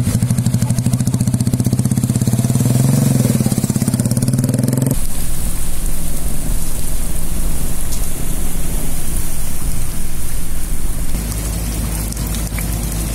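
Motorcycle engine running close by with a rapid, even pulse. After an abrupt cut about five seconds in, a fainter engine sounds under a steady hiss of water and rain noise.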